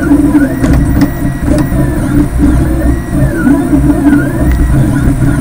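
3D printer running, its stepper motors whining in repeated rising-and-falling sweeps as the print head moves back and forth, over a steady low hum.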